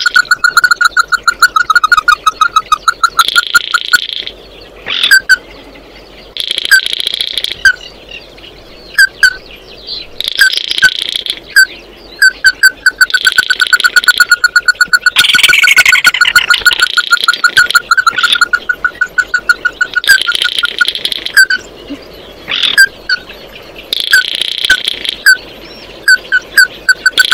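A crake calling: runs of short, rapidly repeated notes at one pitch, with slower single notes between them, alternating with bursts of higher, buzzy chirping. About halfway through, one falling sweep stands out.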